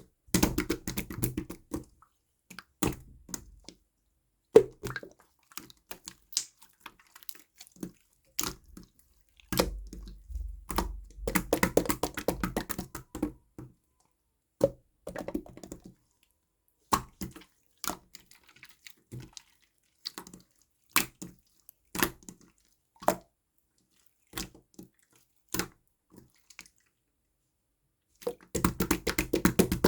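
Clear slime being pressed and stretched by hand: wet clicks and pops of trapped air. Mostly single pops, with dense crackling runs at the start, around ten to thirteen seconds in, and near the end.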